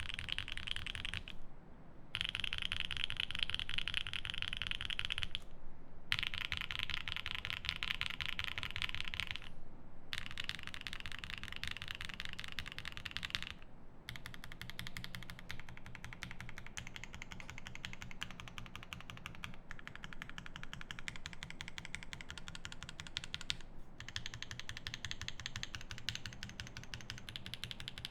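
Fast, continuous typing on a 7V mechanical keyboard with lubed C3 Banana Split linear switches, a polycarbonate plate and GMK keycaps, broken by about five short pauses.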